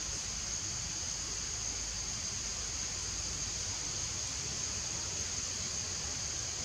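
A steady high-pitched insect drone, with a low rumble beneath it.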